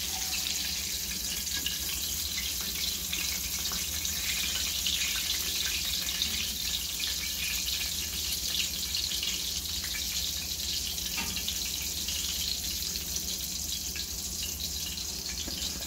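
Dredged porgy fillets frying in shallow hot oil in a skillet: a steady sizzle with fine crackling.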